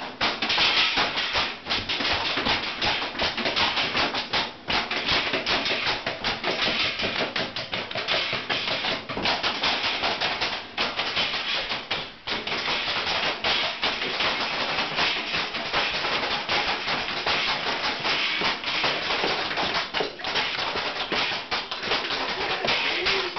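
Improvised kitchen percussion: continuous, rapid banging and clattering on kitchen objects such as a toaster oven, played as a makeshift band.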